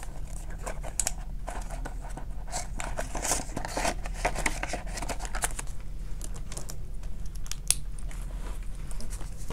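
Prop paper bills and clear plastic binder envelopes rustling and crinkling as cash is handled and the pockets are flipped, with many small clicks and rustles.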